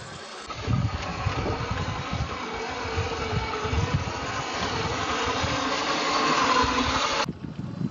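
RC scale Willys jeep driving off-road: its motor and gears whining, with irregular knocks and crunches from the wheels on rough ground, getting louder before cutting off abruptly near the end.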